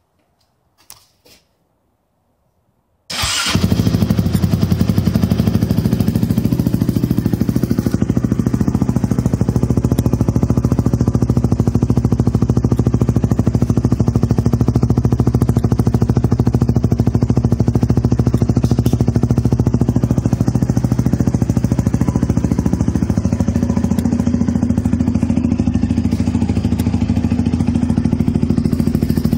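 Honda TRX450R quad's single-cylinder four-stroke engine starting about three seconds in, then running steadily at idle through an aftermarket exhaust with a quiet-kit insert. A few faint clicks come before it catches.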